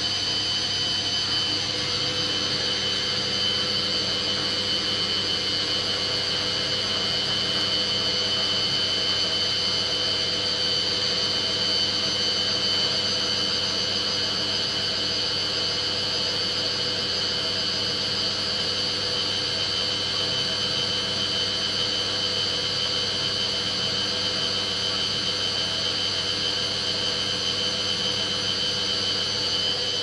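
Hoover front-loading washing machine running on its delicate cycle: a steady motor hum with high whining tones that hold level throughout.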